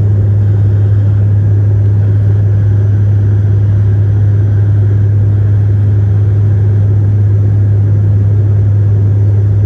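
Airliner cabin noise: a loud, steady low drone with an even rumble beneath it.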